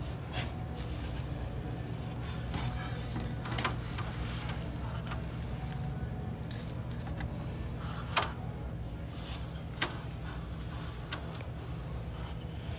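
Snap-off utility knife blade drawn down through two layers of vinyl wall covering along a straightedge, with a few short sharp clicks and scrapes, the loudest about eight seconds in. A steady low hum runs underneath.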